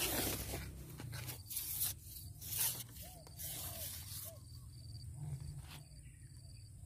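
Rustling and brushing noises in several short bursts as a pole fishing rod and line are handled and the angler shifts on a grassy bank. Faint short bird calls repeat in the background from about halfway through.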